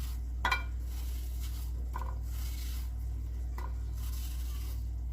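Knife cutting a peeled apple into slices: about four short cuts roughly a second and a half apart, over a steady low hum.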